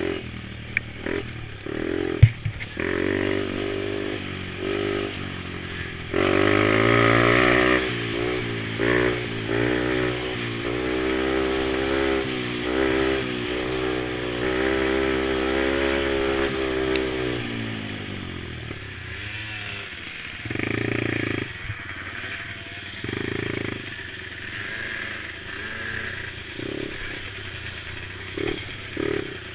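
Mini quad engines racing, revving up and down with the throttle. One quad is loudest and closest from about six seconds in until about eighteen seconds, then fades. Shorter bursts of revving come from others, and there is one sharp click about two seconds in.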